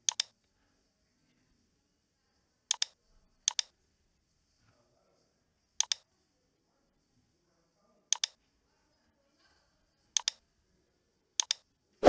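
Computer mouse clicking: seven sharp double clicks at uneven intervals, each a quick press-and-release pair, with near silence between them.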